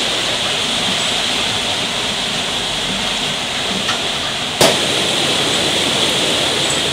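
Steady hiss of heavy rain, with a single sharp click about four and a half seconds in.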